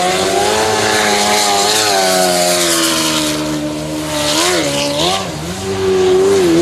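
Jet sprint boat engine running hard at high revs, with the hiss of its jet spray over it. Its pitch dips and comes back up twice, about four and five seconds in.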